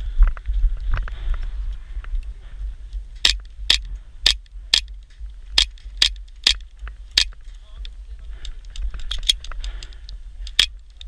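Airsoft guns firing single shots: about eight sharp cracks roughly two a second through the middle, then a few more near the end, over a steady low rumble.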